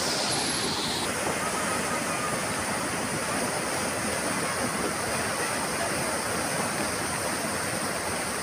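Rain-swollen river or drain running in full spate: a steady, even rush of fast-flowing water.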